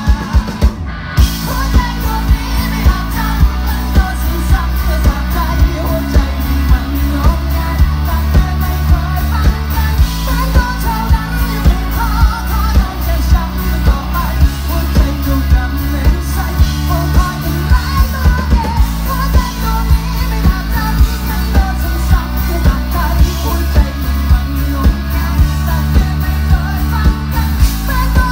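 Thai rock band playing live through a loud PA: a male singer over electric guitar and bass, with a steady drum beat about twice a second.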